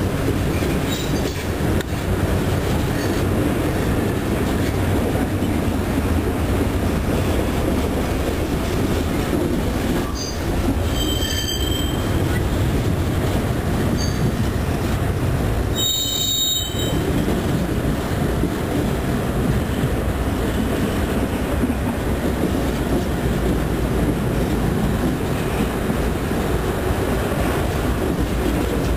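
Freight cars rolling past on the rails: a steady, loud rumble of steel wheels on track, with short high-pitched wheel squeals about a third of the way in and again a little past halfway.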